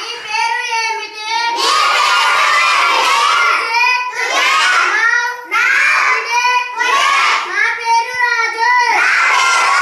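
Children's voices in a classroom, chanting Konkani phrases: a boy calls out each phrase from the blackboard and the class repeats it in unison, back and forth.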